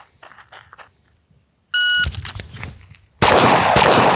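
Shot timer beep, then after a pause of about a second and a half for the draw from the holster, a .40 caliber pistol fires rapid shots that ring and echo. The shots are the loudest part, the first of a timed five-shot string.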